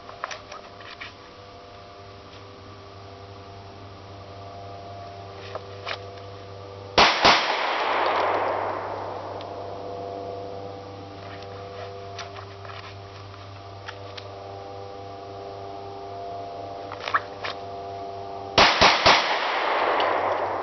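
Pistol shots from a Glock 21 in .45 ACP drawn from a speed holster: a quick pair about a third of the way in, then a fast string of about four near the end. Each string rolls away in a long echo.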